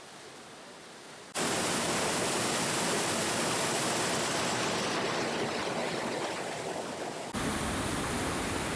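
Waterfall at St. Mary Falls: a steady, loud rush of falling water that comes in suddenly about a second and a half in, after a faint hiss. About seven seconds in it shifts abruptly to a deeper, rumblier rush.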